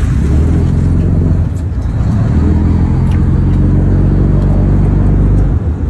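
Boat engine running steadily with a deep, low drone, easing off near the end.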